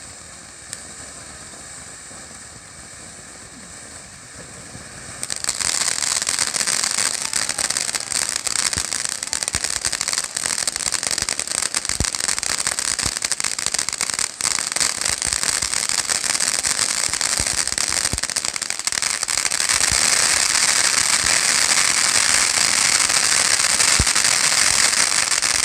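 Flame of Thrones finale fountain firework: a steady hiss of the spark jets, then about five seconds in a loud, dense crackling sets in with scattered sharper pops, and it keeps going.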